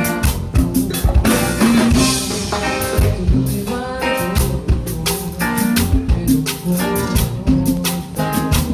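A band playing at a sound check: a drum kit keeps a steady beat under a pitched instrument playing notes and chords.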